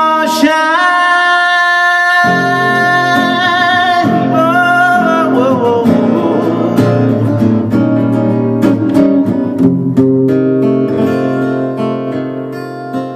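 A man singing one long held note, with vibrato near its end, over a strummed acoustic guitar; about five seconds in the voice drops away and the guitar goes on alone with an up-tempo blues strum.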